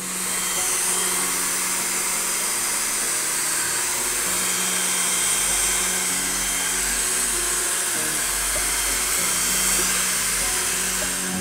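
Hand-held hair dryer blowing a steady, loud hiss of air while a stylist blow-dries hair over a round brush. It starts sharply and runs without a break.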